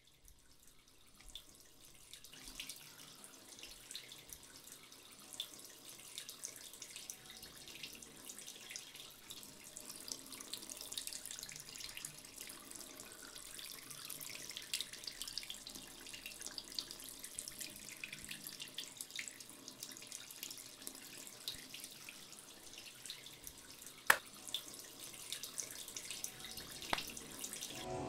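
Water running from a tap and splashing into a basin, slowly growing louder. Near the end there is a sharp click, then a fainter one.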